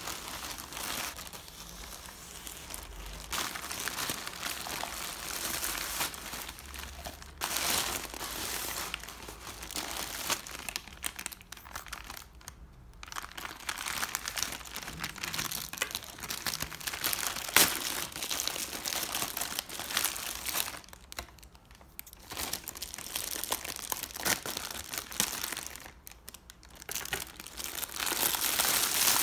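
Plastic poly mailer bag crinkling and rustling as it is handled, cut open with scissors, and a plastic-wrapped item is pulled out, with a few short pauses.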